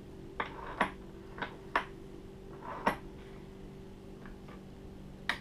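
Handgun powder measure on a reloading press being cycled by hand as its charge is set: a handful of short, sharp clicks and clacks at uneven intervals, with a faint steady hum beneath.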